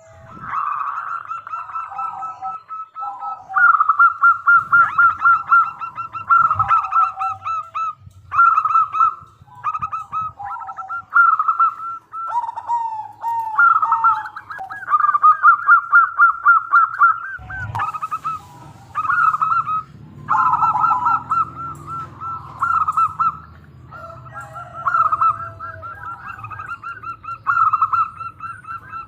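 Zebra dove (perkutut) cooing vigorously in repeated phrases of rapid, stuttering pulsed notes with short pauses between them. From a little past halfway, a low steady rumble runs under the calls.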